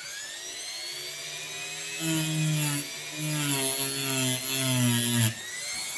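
Dremel rotary tool grinding down the protruding pin of a straight razor. The motor whine climbs as it comes up to speed, then sags in pitch and gets louder under load in about four short touches between two and five seconds in, and picks up again when lifted off.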